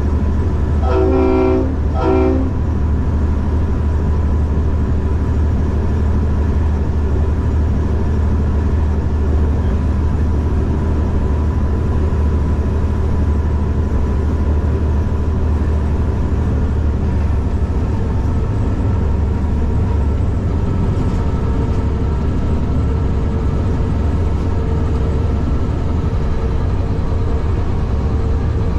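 Diesel locomotive engine running steadily, heard from the cab, with two horn blasts about a second in: a longer one, then a short one.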